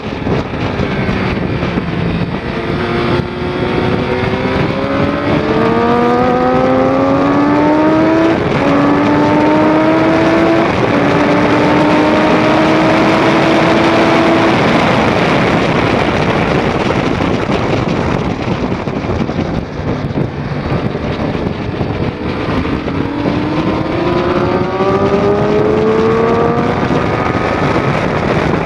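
2006 Triumph Daytona 675's inline-three engine accelerating hard through the gears, its note climbing and dropping back at each upshift, twice, over heavy wind rush on the microphone. The engine note sinks under the wind for several seconds midway, then climbs again under throttle near the end.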